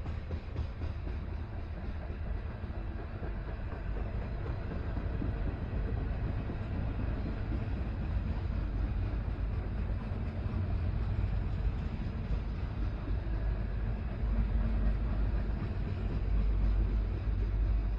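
Freight cars of a CN manifest train rolling past, a steady rumble of wheels on rail with a light clickety-clack. The low rumble grows louder over the last few seconds.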